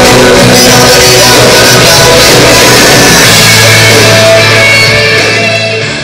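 Loud rock backing music with a driving beat. A held low note comes in about three seconds in, and the music dips in level near the end.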